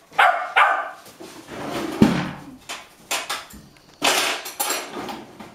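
Golden retriever puppies give two quick high yaps of impatience at feeding time. About two seconds in comes a sharp knock, and about four seconds in a brief rattling clatter.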